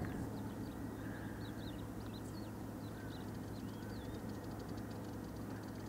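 Small birds chirping in short, high, up-and-down calls over a steady low rumble of open-air background, with a fast high ticking trill starting near the end.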